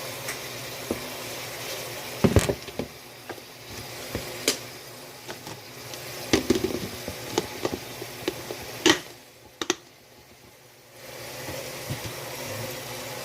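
Water running from a kitchen tap, with sharp clatters of dishes or kitchenware being handled at the sink. The water stops for a second or two near the end, then runs again.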